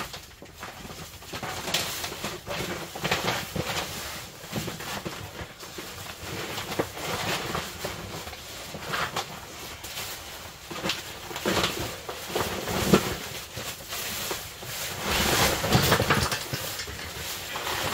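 Heavy fabric tent floor rustling and flapping in irregular bursts as it is pulled up and folded back by hand, with a few sharper knocks as the camp cot is shifted.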